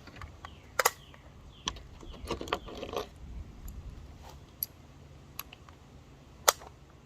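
Scattered sharp metallic clicks and clacks, with louder ones about a second in and near the end, typical of handling an AR-15 rifle and loading its magazine.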